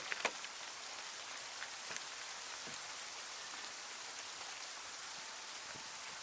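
Steady hiss of wintry precipitation, rain or sleet, falling on the ground and nearby surfaces, with scattered small ticks of drops or ice pellets striking.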